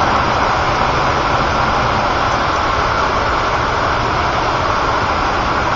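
Floodwater pouring over a dam with its gates wide open: a loud, steady rush of water.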